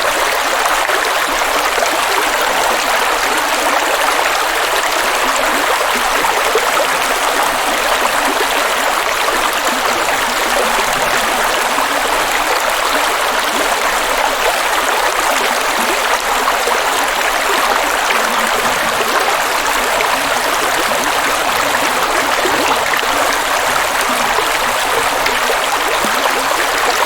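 Rushing water of a large waterfall: a steady, even hiss with little low rumble, unbroken throughout.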